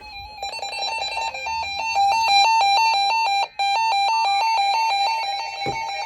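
Electronic alert beeping: a buzzy tone switching rapidly back and forth between two close pitches, like an alarm, with a brief break about three and a half seconds in.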